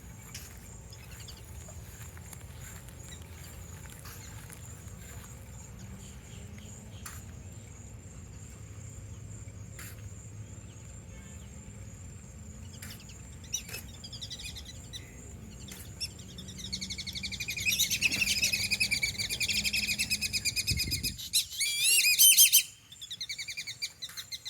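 Black-bellied whistling ducks calling: a steady low hum for the first part, then, from a bit past the middle, loud, rapid, wavering whistled calls that peak a few seconds before the end, with shorter calls after.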